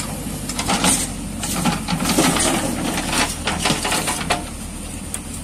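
JCB 3DX backhoe loader's steel front bucket scraping and crunching on gritty sand and gravel, a run of irregular clatters that dies away near the end. The machine's diesel engine runs steadily underneath.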